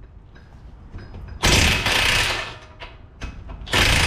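Two loud bursts of rapid mechanical hammering, each about a second long, as a bolt is driven out of a car's front suspension.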